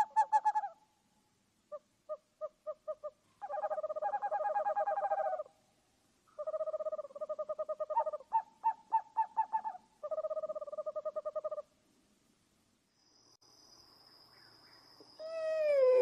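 Owl calling: quick runs of short hoots and rippling trills with short pauses between them, then a loud call that slides steeply down in pitch near the end.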